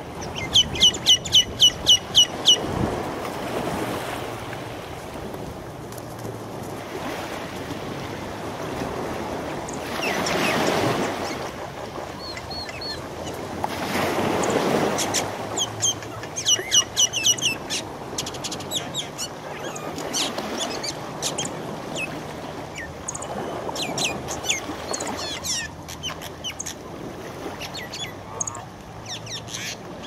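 Common mynas calling as they fight: harsh calls in fast runs of about nine evenly spaced notes, with scattered squawks between them. Twice in the middle a swell of rushing noise rises and falls.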